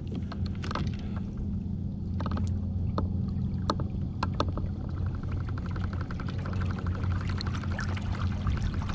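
Minn Kota electric trolling motor running with a steady low hum, under water sloshing against a kayak hull and scattered knocks. From about five seconds in, a fast, even ticking joins it.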